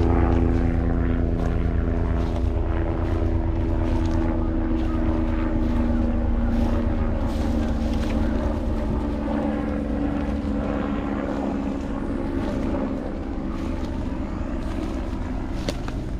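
Engine running at a steady speed, a loud even drone with several held tones over a low rumble and wind noise.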